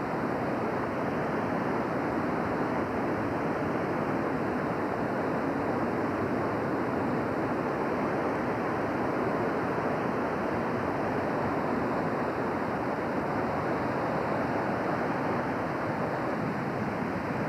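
Steady rushing of the North Fork Wilson River in flood, fast-moving floodwater making an even, unbroken noise.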